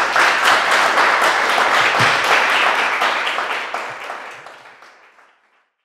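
Audience applauding: many people clapping at once, holding steady and then fading out over the last two seconds or so.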